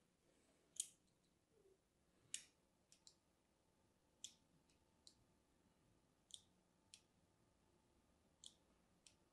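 Craft knife blade scoring a bar of dry soap: about ten sharp, crisp clicks spaced unevenly, with near silence between them.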